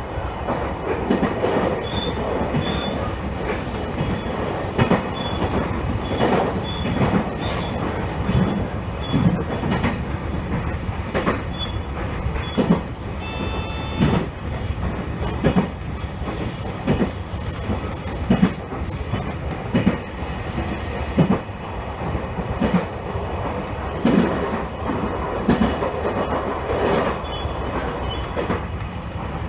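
Electric train running along the line, heard from inside the front car: a steady rumble of wheels on rail, with irregular knocks as the wheels pass over rail joints and faint, brief wheel squeals.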